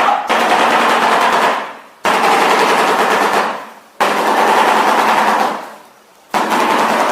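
Shoebill clattering its bill: rapid, machine-gun-like rattling in repeated bursts of about a second and a half, each dying away before the next begins, four bursts in all.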